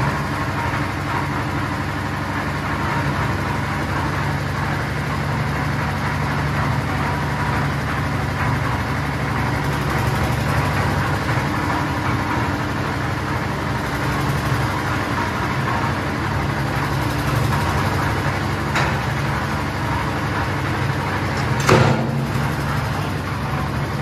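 Engine of a two-in-one concrete mixer and material-lift machine running steadily, driving the lift hoist as its bucket travels on the tower. A faint click comes about three-quarters of the way through, and a louder sharp knock near the end.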